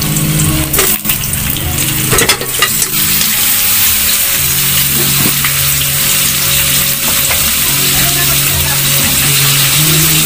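Pork pieces dropped into hot oil in a wok with sautéing garlic and onion, sizzling steadily, with a few sharp knocks in the first three seconds as the meat lands in the pan.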